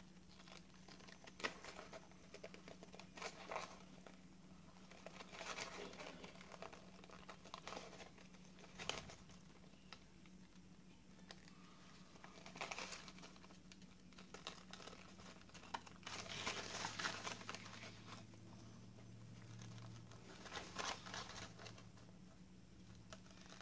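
Scissors snipping through a paper napkin dried onto a cardboard tag, with the thin tissue crinkling as it is handled. It is faint and comes in short, irregular bursts a few seconds apart.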